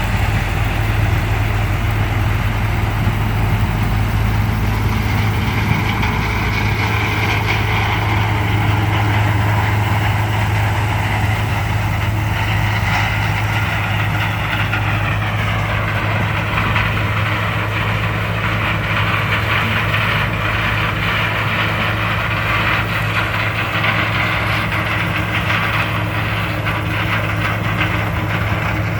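New Holland TR99 combine running steadily while harvesting: a constant engine drone with a higher machinery whine, whose pitch falls about fifteen seconds in.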